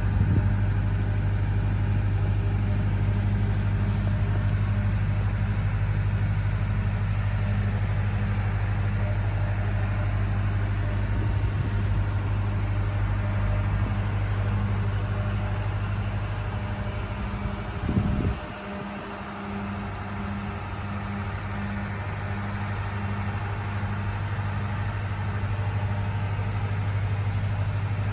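Steady low engine hum with a slow, even throb, like a motor running at idle. About eighteen seconds in there is a brief bump, and the low hum dips for a couple of seconds before coming back.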